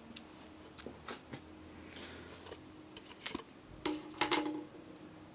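Light clicks and taps of a car engine-control module's circuit board being handled and turned over, with two louder knocks about four seconds in that ring briefly.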